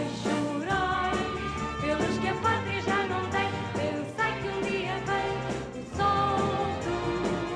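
A female singer's voice with a live orchestra accompanying her.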